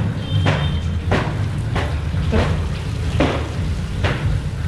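Repeated swishing strokes, roughly one every two-thirds of a second and slightly uneven, over a steady low rumble: a wet T-shirt and jacket being washed by hand.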